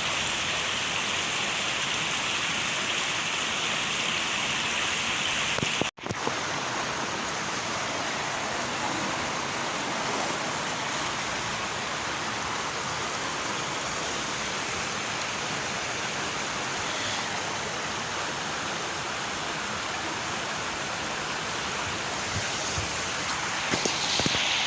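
Waterfall's rushing water, a steady even roar, with a brief cut in the sound about six seconds in.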